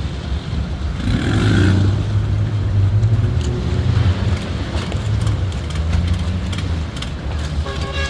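Speedboat engines running with a steady low drone, a little louder for a few seconds early on as another speedboat runs close alongside.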